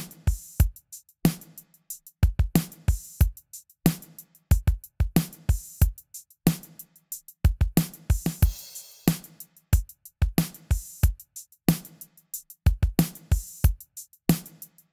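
Recorded drum kit playing a steady groove of kick, snare and hi-hat hits, played back through an emulated Chandler-style equaliser plugin with its high-frequency band boosted.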